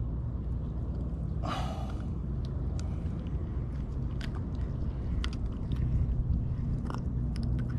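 Small clicks and scrapes from a grunt being held and unhooked by hand, over a steady low rumble. A short breathy sound comes about one and a half seconds in.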